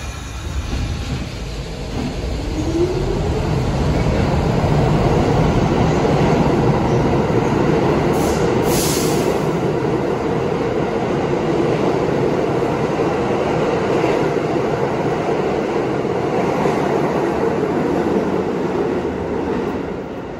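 New York City subway train running loudly past the platform with a steady rumble, a brief rising whine about two seconds in and a short high-pitched sound about eight seconds in; the noise fades near the end.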